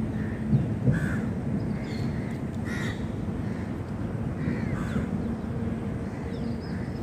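Crows cawing: several short, separate caws a second or so apart, over a steady low hum.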